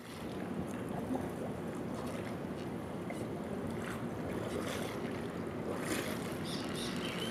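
Steady harbour ambience of wind and water.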